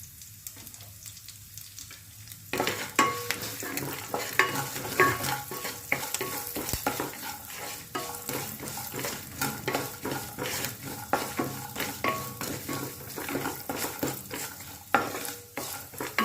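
Cashews and peanuts frying in hot coconut oil with the tempering spices, sizzling while a spoon stirs and scrapes the pan. There is a faint sizzle at first, then from about two and a half seconds in, a steady run of irregular clicks and scrapes over the frying.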